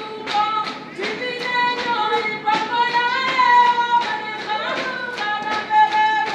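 Choir singing unaccompanied, women's voices prominent, over sharp strikes keeping a steady beat about two to three times a second.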